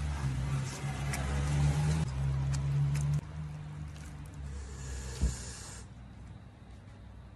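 Low steady rumble of a passing motor vehicle that drops away after about three seconds, with a single short knock about five seconds in.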